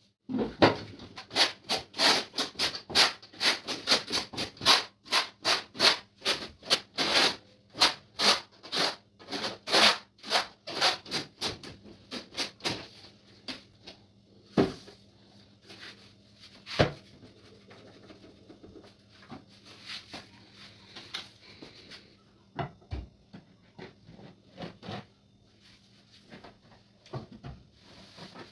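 Repeated short scraping or rubbing strokes on a hard surface, about two to three a second for the first dozen seconds, then fewer and farther apart, with a few single knocks.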